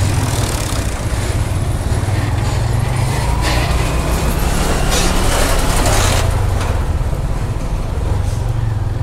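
Motorcycle engine running steadily at low speed, heard from a camera mounted on the bike, with road and wind noise. For about three seconds in the middle a louder rushing noise rises over it as the bike passes close alongside a loaded dump truck.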